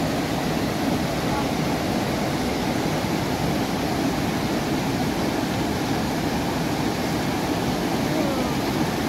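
Mountain river rushing steadily over rocks: a constant, even roar of flowing water.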